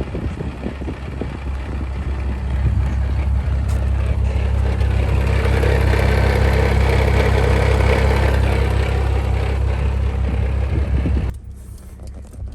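BMW F10's N55 turbocharged straight-six running at a steady speed while the car is driven, with road noise building over the first several seconds. About eleven seconds in it drops abruptly to a much quieter idle.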